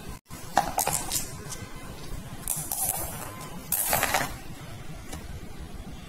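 Glass marbles clinking and rattling against each other and the plastic basket as a hand moves them about. The clinks come in short clusters: about half a second in, again around three seconds, and again around four seconds.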